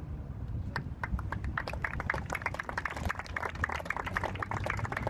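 Applause: a few scattered hand claps about a second in, quickly building into steady clapping from a small group.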